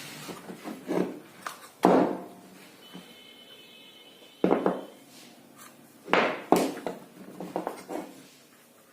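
Irregular knocks and thuds of objects being handled and set down, about six sharp ones with lighter clatter between, and a faint high steady tone for about two seconds in the middle.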